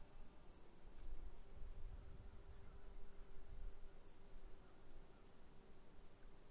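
Faint insect chirping, short regular chirps about two and a half a second, over a steady high-pitched buzz.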